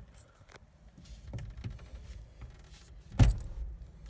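Keys jangling and small clicks in and around a 1990 Chevy Suburban as the ignition is tried, then a single short, heavy thump a little after three seconds in. No engine cranking or running is heard.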